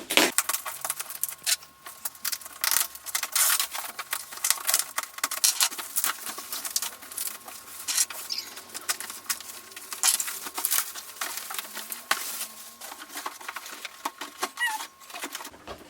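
Ring light packaging being handled and opened: irregular crackling and rustling, with dense clusters of sharp crinkles.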